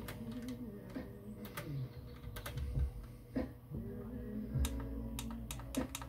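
Pioneer CT-737 cassette deck's front-panel push buttons clicking as they are pressed, a dozen or so short clicks, several in quick succession near the end.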